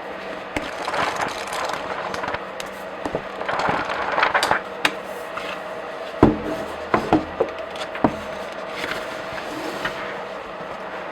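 Pages of comic books being flipped, giving soft papery swishes and rustles. Between about six and eight seconds in come a few sharp slaps or taps as pages fall flat or the book is handled.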